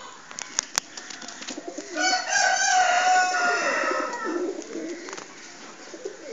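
Domestic pigeons cooing in a loft, with a few sharp clicks in the first second. About two seconds in, a louder, drawn-out call from another bird lasts a couple of seconds over the cooing.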